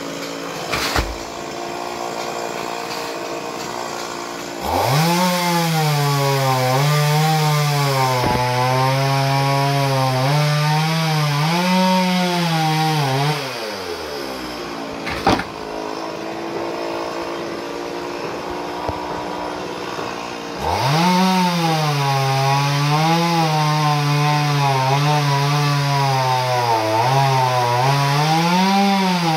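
Chainsaw cutting coconut palm wood in two long bouts of about eight seconds each, its engine pitch sagging and recovering under load, with a lower, steadier running between the cuts. There are sharp single knocks about a second in and near the middle.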